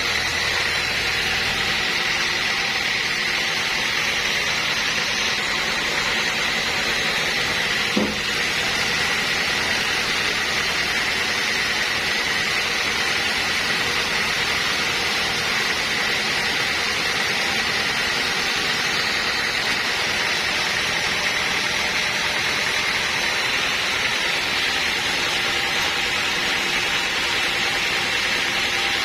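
Sawmill machinery running steadily, with a constant high whine over an even mechanical noise and one brief bump about eight seconds in.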